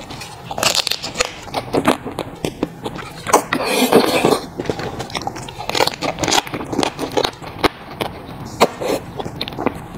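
Close-miked eating of raw marinated crab: wet slurping and sucking of the meat from the shell, with smacking chews and sharp clicks of crab shell being pulled apart. A longer loud slurp comes about four seconds in.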